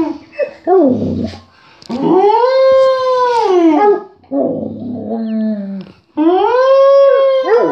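Yellow Labrador retriever howling: long drawn-out howls that rise and fall in pitch, with shorter, lower whining and grumbling calls between them.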